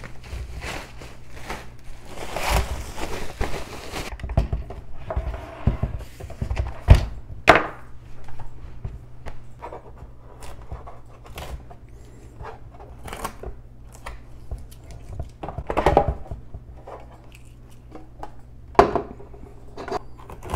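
Plastic packaging bag rustling as it is pulled off a Keurig K-Express coffee maker, then scattered knocks and clicks of the machine's plastic parts being handled, the water reservoir and drip tray, with packing tape being peeled off. The sharpest knocks come about seven seconds in and again near sixteen seconds.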